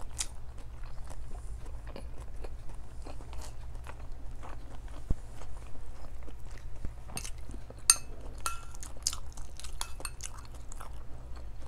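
Close-up chewing and mouth sounds of a person eating rice and fish, picked up on a clip-on microphone: many small wet clicks over a steady low hum. In the second half, a few ringing clinks of a metal spoon against ceramic dishes.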